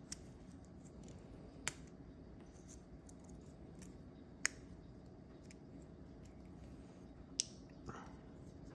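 A few sharp, isolated clicks, about four spread out over several seconds, of a precision screwdriver tip prying at a small plastic camera part, with a short scrape near the end, over faint room tone.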